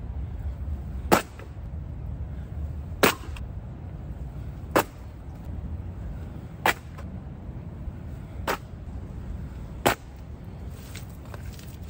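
Six sharp knocks, one every two seconds or so, from the camper working at the ground by the fire ring. Under them runs a steady low rumble of wind on the microphone.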